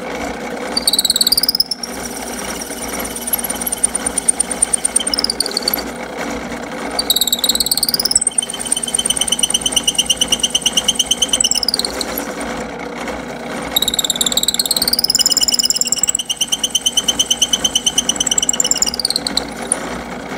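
Drill press running with a 27/64 bit boring deep into a plasticizer-stabilized wood pen blank, plunged in and out. There are three long high-pitched squeals, each rising in pitch, holding, then falling, over the steady hum of the motor. The squealing is friction from the bit deep in the plasticized blank, which is heating up.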